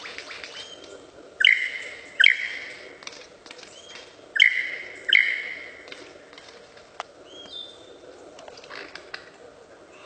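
Superb lyrebird mimicking laser-gun sounds: two pairs of loud, sudden electronic-sounding calls, each fading over about half a second, followed by a few fainter ones.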